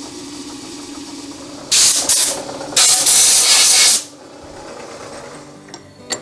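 Compressed-air blow gun blasting twice, a short burst then a longer one of about a second, over the steady hum of the Hardinge Cataract bench lathe's belt-driven headstock spindle running.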